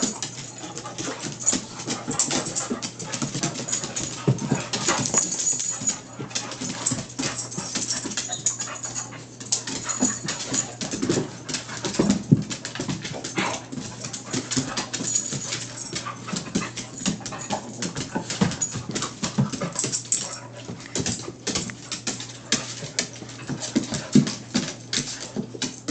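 An American Eskimo dog and two Brittany spaniels play-fighting, with dog vocalisations and scuffling throughout. Many irregular sharp clicks come from claws scrabbling on a hardwood floor.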